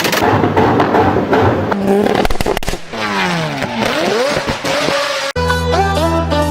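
Car exhaust popping and crackling rapidly over a running engine. The engine note then falls and rises again as it revs. About five seconds in, it cuts off sharply into music.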